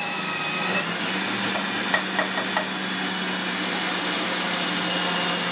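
Electric food processor motor running steadily as onion is grated into the bowl through the feed tube, with a constant hum and a high whine that steadies about a second in. A few light knocks come around two seconds in as the onion is pushed through.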